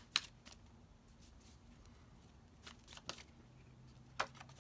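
Tarot cards being shuffled and drawn by hand: a few soft snaps and flicks of card stock, spaced out, with quiet between them.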